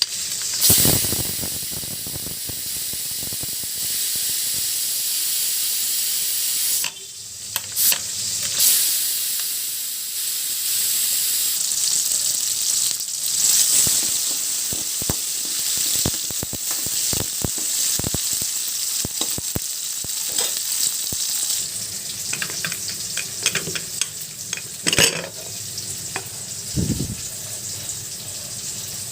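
Onions and tomatoes frying in oil in a kadai, a steady sizzle, with the repeated clicks, knocks and scrapes of a spoon stirring or mashing.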